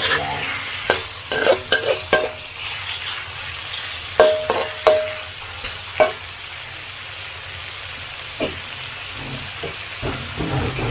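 Duck meat stir-frying in a hot pan with a steady sizzle. A metal spatula clanks and scrapes against the pan about eight times, mostly in the first six seconds, a couple of the strikes ringing briefly.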